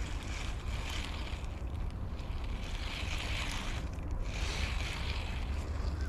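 Wind rumbling on the microphone, with a hiss that swells and fades about once a second.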